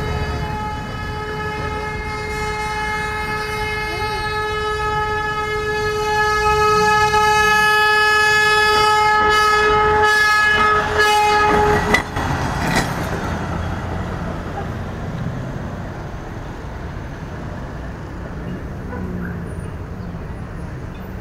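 Rail inspection truck's horn sounding one long unbroken blast, louder about halfway through, warning vehicles stopped at the level crossing. It cuts off suddenly about twelve seconds in, leaving the truck's engine and rolling noise on the track.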